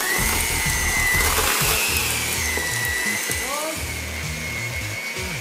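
Electric hand mixer running with its beaters in a thick mixture, a steady motor whine whose pitch wavers up and down. Background music with a steady beat plays underneath.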